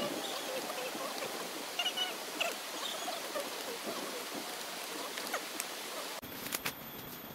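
Steady hiss of water, such as rain or a forest stream, with a few short chirps about two seconds in. A little after six seconds it cuts abruptly to a quieter ambience with scattered sharp clicks.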